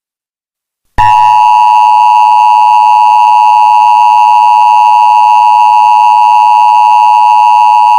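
Emergency Alert System attention signal: a loud, steady two-tone alert tone that begins abruptly about a second in, after a moment of silence.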